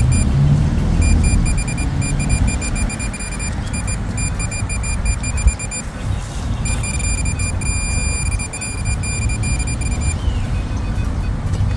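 Metal detector beeping rapidly at one high fixed pitch in runs that stop and start, as it is passed over a buried metal target in a dug hole, over low rumbling handling and digging noise with one sharp knock about halfway through.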